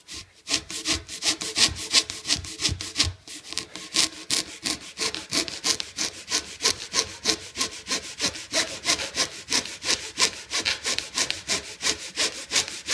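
Hand saw cutting back and forth through a clamped Rawlings baseball's leather cover and the yarn winding inside, in a steady rhythm of about four strokes a second. The sawing starts about half a second in.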